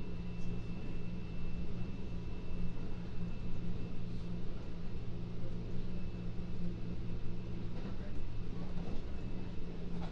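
Interior running sound of a Kintetsu 3200 series chopper-controlled electric train: a steady rumble under constant hum tones, with a few faint clicks near the end.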